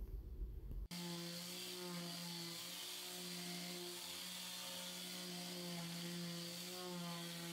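Corded electric detail sander running steadily against painted drywall with coarse sandpaper, scuffing the paint: an even motor hum over a hiss of sanding. It comes in abruptly about a second in.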